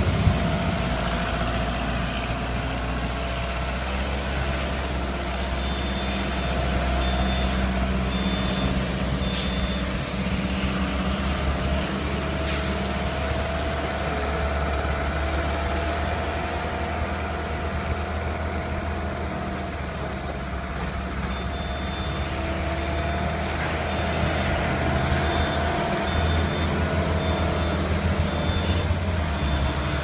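Mini skid steer loader's engine running steadily under work, with the machine's reversing alarm beeping about once a second during two stretches: from about six seconds in to nearly ten, and from about twenty-one seconds on.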